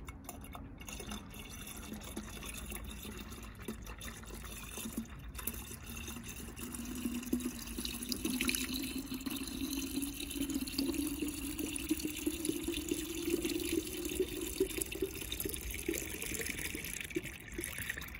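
Pink antifreeze coolant pouring from a plastic jug into a car's coolant expansion tank. It gets louder about seven seconds in, and the pour's tone rises slowly as the tank fills.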